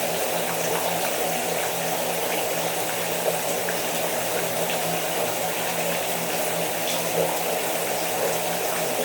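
A rain shower falling steadily: an even rush of water with a few separate drop ticks.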